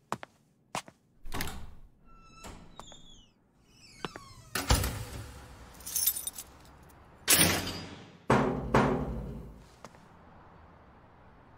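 A string of sharp knocks and thuds, the loudest four in the second half each ringing out briefly, mixed with light metallic jingles of a ring of keys.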